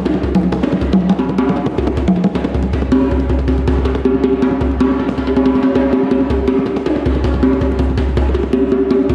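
Music with fast, busy drumming over steady pitched notes.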